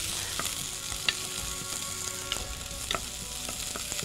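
Sliced onions sizzling steadily as they soften in a little oil or ghee in a pot. A wooden spoon stirs them, scraping and knocking against the pot every second or so.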